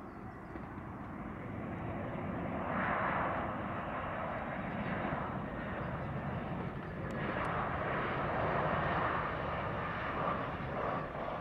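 Airbus A319 airliner's CFM56 jet engines on final approach, a steady jet noise that grows louder as the plane nears, swelling about three seconds in and again from about seven seconds on.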